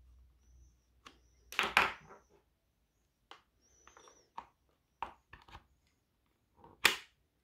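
Sharp plastic clicks and knocks as power-lead plugs are pulled out of and pushed into the socket of a plastic electric lunch box. There is a series of separate knocks. The loudest come about a second and a half in and just before the end.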